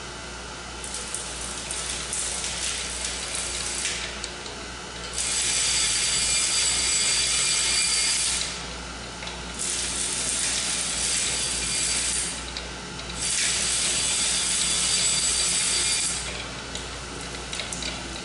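Surface grinder wheel being dressed: the dresser is traversed across the spinning abrasive wheel face in three passes of about three seconds each, each a loud, even, gritty hiss, with lighter crackling contact between them, over the grinder's steady low hum. A sound that stays consistent all the way across a pass is the sign that the dresser is cutting all the way around the wheel, not just taking off the high spots.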